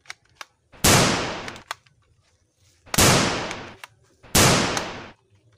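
Toy pump-action shotgun giving three gunshot sounds, each sudden and fading out over most of a second, with a few small clicks of its mechanism in between.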